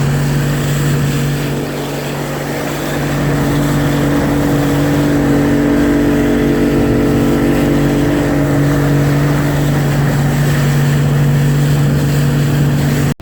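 Motorboat engine running steadily at an unchanging pitch, under a steady rushing noise.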